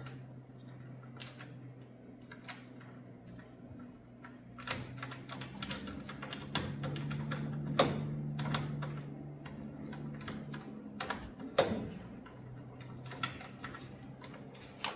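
Irregular light clicks and taps of nuts, bolts and a steel roller bracket being handled and threaded on by hand, over a steady low hum.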